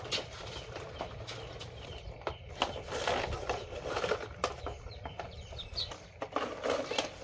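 Chickens clucking, mixed with scattered clicks and knocks as a plastic toy dump truck is pushed and handled on concrete.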